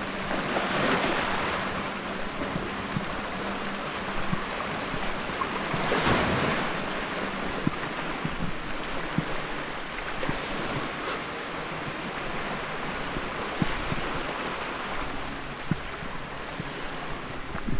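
Small waves washing onto a white pebble beach, surging twice, about one and six seconds in, with wind buffeting the microphone and scattered small clicks.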